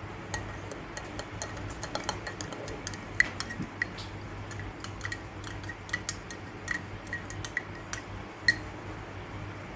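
Irregular light clicks and clinks, a few with a short ringing tone, over a faint steady hum.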